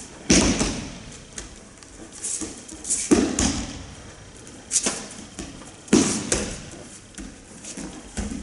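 Aikido breakfalls (ukemi): a body thrown onto the training mat, landing with three heavy thuds about three seconds apart and a couple of lighter slaps, each dying away in the hall. Between the falls comes the quick rustle of cotton uniforms and hakama.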